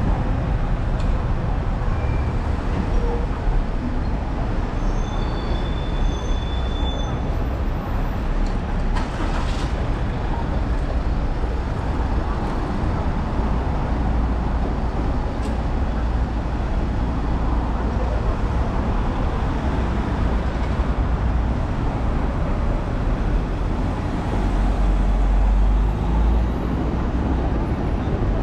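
Steady city road traffic running past, with a constant low rumble.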